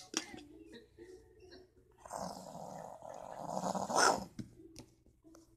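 A child making a wolf's growl with the mouth, starting about two seconds in, swelling for about two seconds and cutting off sharply. Light clicks of plastic toy figurines being handled on carpet come before it.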